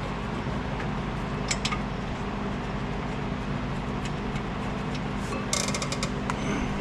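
Hand socket ratchet working a bolt: a couple of sharp metallic clicks, then a quick run of ratchet clicks near the end, over a steady low hum.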